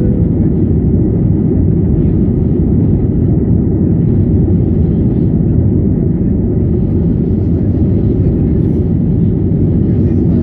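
Aeroplane engines and airflow during a takeoff: a steady, loud, low rumble with little change.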